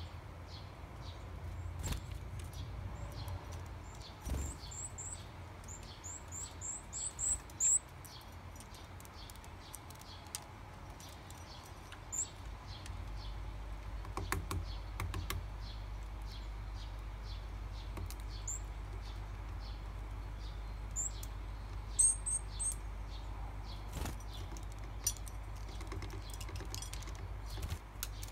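High, thin bird call notes from varied tits: a quickening run of about eight notes a few seconds in, then scattered single notes. Soft taps and wing flutters come as a bird lands on the wooden feeder table.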